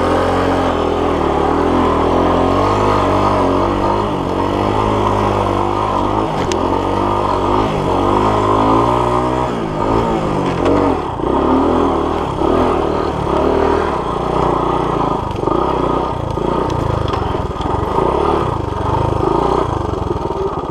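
Honda CT90's small single-cylinder four-stroke engine running under load on sand, its pitch rising and falling with the throttle. After about ten seconds the note turns choppier, with repeated dips as the throttle is rolled off and on.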